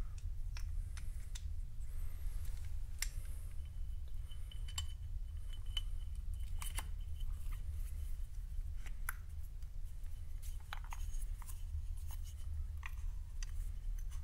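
Scattered light clicks and taps from small parts and tools being handled, over a steady low hum.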